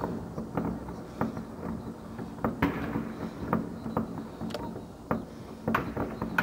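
Fireworks going off: irregular sharp bangs and pops, about a dozen, the loudest two near the middle and about three-quarters through, over a steady low hum.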